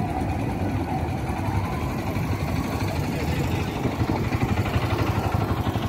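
Auto-rickshaw's small engine idling, a steady low throb that grows a little louder near the end.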